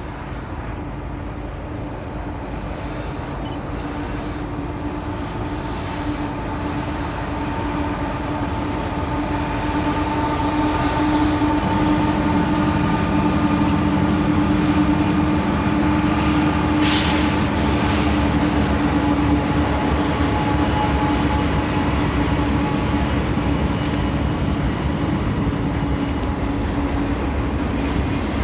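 Diesel locomotives of a BNSF intermodal train running down the grade. The sound grows louder over the first half as they approach, then holds steady, with a low steady hum and a higher steady whine running through it.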